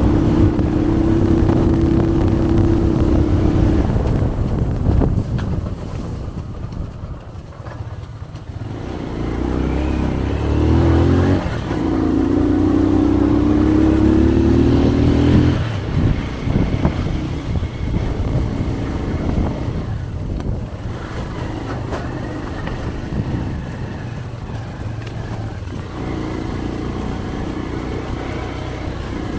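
Motorcycle engine running and revving. Its pitch climbs from about 9 to 15 seconds in, then drops back to a steadier, quieter run.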